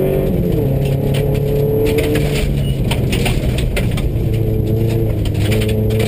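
Subaru rally car's engine running hard, heard from inside the cabin, its note falling and rising a few times. Gravel crackles and rattles against the car throughout.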